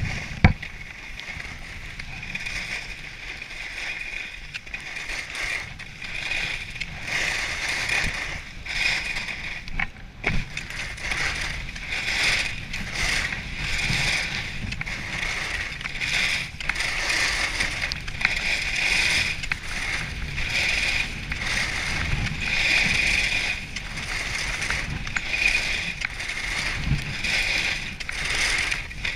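Alpine skis carving down groomed snow: a scraping hiss that swells and fades every second or two as the skier turns, over low wind rumble, with a sharp knock just after the start.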